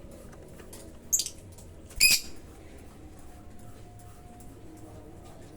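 Lovebird chirping: two short, shrill calls, one about a second in and a louder one about two seconds in.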